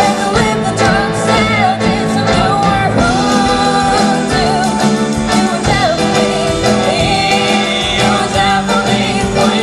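Live pop-rock band playing, with a voice singing the melody over the instruments.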